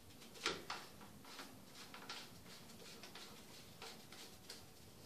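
Plastic clicks and light scraping as a white PVC sink trap's slip nut is threaded and hand-tightened onto the tailpiece. A sharp click about half a second in is the loudest, followed by a second click and scattered faint ticks.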